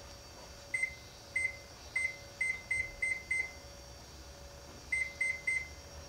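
Microwave oven keypad beeping as its buttons are pressed to set the timer: ten short beeps, a quick run of seven followed by three more after a pause of about a second and a half.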